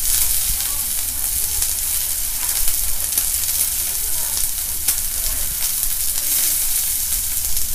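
Eggplant slices and sausages sizzling on a tabletop hot plate: a steady high hiss with faint scattered crackles.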